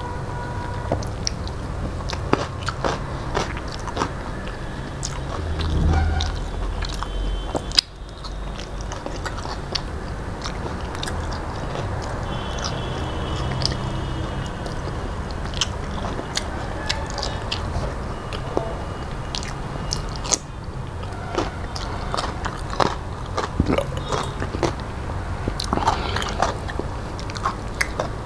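A person chewing mouthfuls of rice, dal and vegetables eaten by hand, close to the microphone, with many short sharp mouth clicks.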